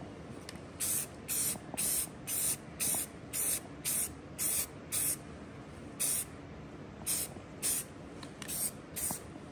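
Aerosol spray-paint can sprayed in more than a dozen short hissing bursts, about two a second at first, then more spaced out. Paint is being laid on in quick passes over a stencil.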